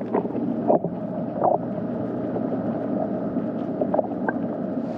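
Boat engine running steadily nearby, a low even hum, with a few light knocks about a second in and again near the end.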